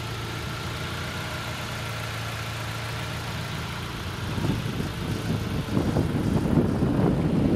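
A car engine idling steadily. From about four seconds in, rough wind buffeting on the microphone grows over it.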